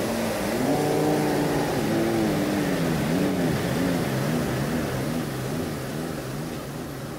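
Lamborghini Gallardo Spyder's V10 engine revving up once about a second in, then running at low speed with its pitch swinging up and down about twice a second as the car pulls slowly away.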